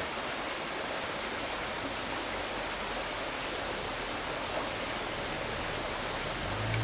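Steady rushing of creek water. A low steady hum comes in near the end.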